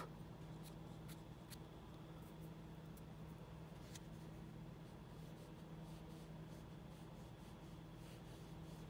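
Faint scratching of a paintbrush working paint back and forth on a painting, with a few soft clicks, over a low steady hum.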